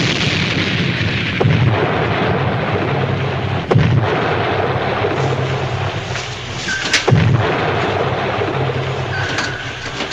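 Depth charges exploding around a submarine: a long, rumbling blast with sharp cracks about one and a half, four and seven seconds in. Short sonar pings sound twice near the end.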